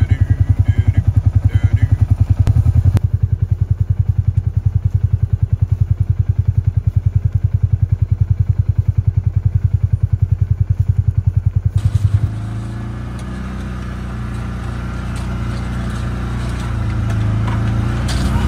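Vehicle engine idling with a rapid, even chug. About twelve seconds in, it gives way to a steadier engine drone that rises slightly toward the end.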